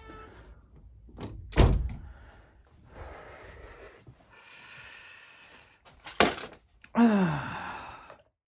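Two heavy thunks, the loudest about a second and a half in and another about six seconds in, with a short sound falling in pitch near the end.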